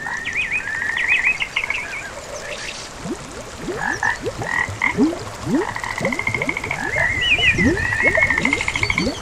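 A chorus of frogs calling together: fast pulsed trills and quick chirping calls overlap throughout, and from about three seconds in, many short, deeper rising notes join in.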